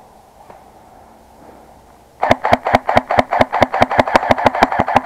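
Airsoft electric rifle (Ares Amoeba AM-013) firing full-auto: after about two seconds of quiet, a long rapid burst of evenly spaced shots from the electric gearbox, driven at a high rate of fire by its digital MOSFET.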